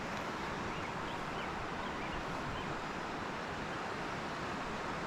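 Mountain creek rushing steadily, running high and fast with snowmelt runoff.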